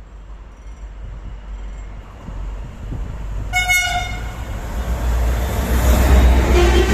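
Train horn giving one short single-note blast about three and a half seconds in, a driver's greeting to someone trackside. Under it the rumble of the approaching train grows steadily louder until it passes close by near the end.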